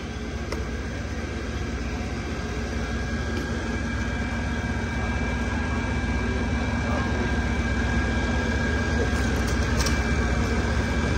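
Fire apparatus diesel engines running steadily with a low drone and a faint steady high whine on top, growing gradually louder; an aerial ladder truck keeps its engine running to power the raised ladder.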